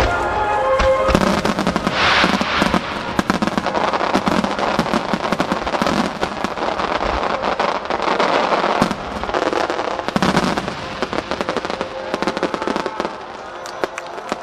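Aerial fireworks shells bursting with dense crackling, many rapid pops and bangs overlapping, over accompanying music. The crackle thins out a little near the end.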